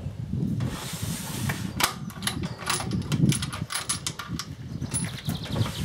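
Scattered light knocks and clicks as a scoped rifle is handled and set down on a wooden recoil sled on a concrete shooting bench, with a short hiss early on.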